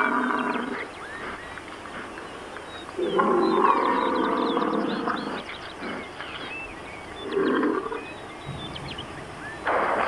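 European bison calling: a long, low drawn-out grunt about three seconds in and a shorter one near the end, with small birds chirping faintly.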